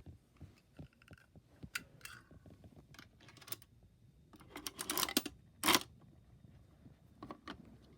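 Scattered light clicks and clatter of a toy vending machine being opened and handled, with a louder rattle about five seconds in and a sharp clack just after.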